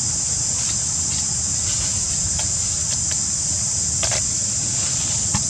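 Steady high-pitched drone of insects such as cicadas or crickets, over a low rumble, with a faint brief sound about four seconds in.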